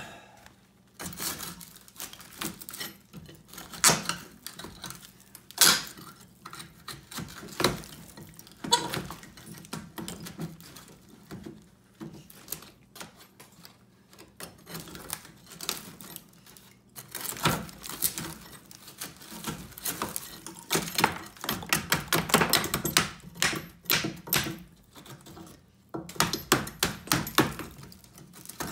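Metal pry bar prying at old wooden beadboard paneling and its nails: irregular sharp knocks and clicks, coming thick and fast for a stretch about two-thirds of the way through.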